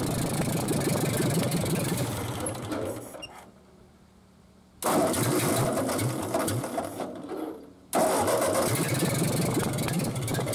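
Ford 8N tractor's four-cylinder flathead engine being started with no carburetor fitted. It runs and dies out about three seconds in, then is cranked again twice, each attempt starting abruptly and lasting about three seconds before dying away.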